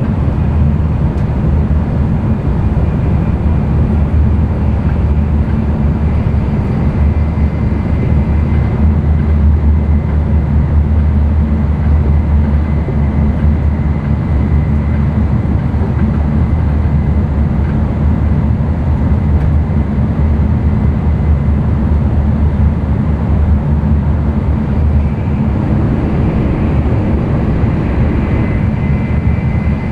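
Cabin running noise of an N700-series Tokaido Shinkansen at speed: a steady, loud, low rumble of the train on the rails. A faint high whine comes in twice, about a third of the way in and again near the end.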